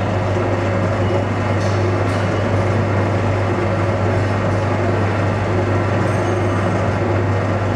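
Homogenizing emulsifying mixer running: a loud, steady electric-motor hum under an even mechanical whir.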